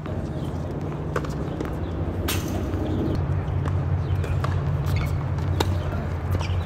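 Tennis rally on a hard court: a few sharp pops of racquets striking the ball and the ball bouncing, the strongest about two seconds in. A steady low rumble runs underneath.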